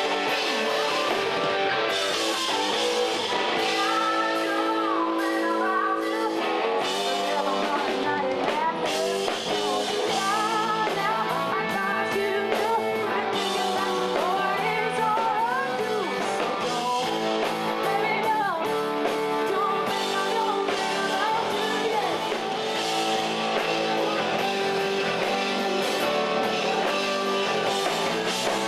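Rock song with guitar, drums and a singing voice.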